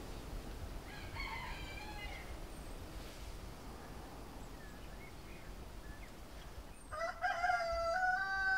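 A rooster crowing twice: a fainter crow about a second in, then a louder, longer crow near the end.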